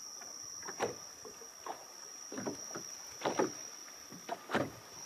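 Small waves lapping against the hull of a small boat at anchor: soft, irregular slaps, several a second apart, over a steady faint high-pitched tone.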